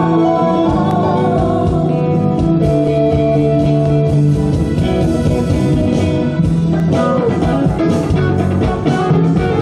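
Music led by guitar, with a steady beat.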